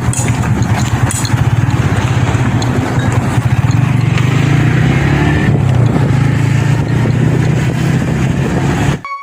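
A motor vehicle's engine running steadily while on the move, with road and wind noise rushing over the microphone. Music cuts in abruptly near the end.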